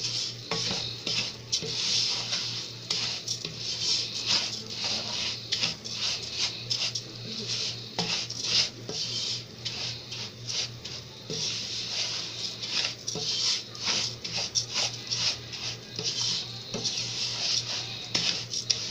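Wooden spoon stirring dry rice grains around a hot oiled pot: repeated scrapes against the pot with the rustle of grains sliding and scattering, as the rice toasts before the water goes in.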